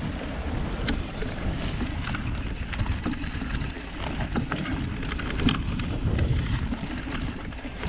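Mountain bike rolling along a dirt singletrack, its 29+ tyres and frame rumbling and rattling over bumps with frequent small clicks and knocks, under steady wind noise on the microphone.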